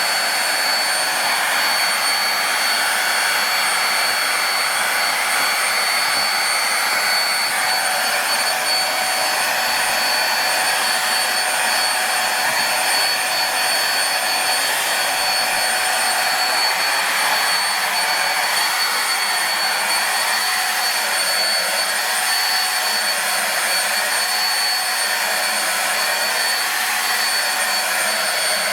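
Starwind SCH1012 vacuum cleaner running steadily: a rush of air with a thin high whine from the motor.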